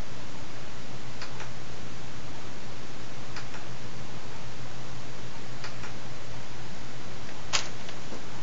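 Pairs of faint clicks about every two seconds, the sharpest near the end, over a steady hiss with a low hum.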